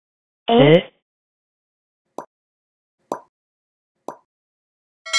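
Edited-in sound effects: a short synthesized-voice "so?", then three short pops about a second apart, each as a ◎ mark pops onto the screen. Near the end a bell-like ding starts ringing and decays; it is the loudest sound.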